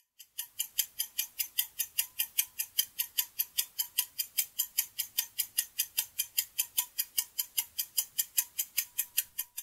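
Clock-like ticking sound effect of a quiz countdown timer marking the seconds left to answer. The ticks are short, crisp and high-pitched, about four to five a second, and keep an even pace, starting about half a second in and stopping just before the end.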